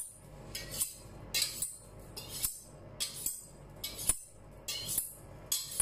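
Kitchen knife drawn along a steel honing rod, about a dozen quick high-pitched scraping strokes at roughly two a second, honing an edge that has gone dull.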